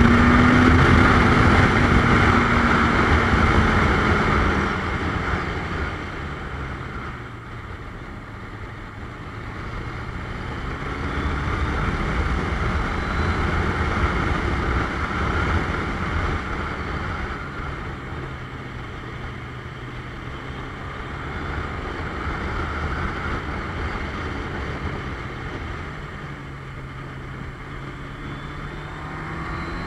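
Suzuki GS700ES motorcycle's inline-four engine under way with wind rushing over the bike. The engine note falls over the first few seconds as the throttle comes off, then rises and falls gently with the road, climbing again near the end.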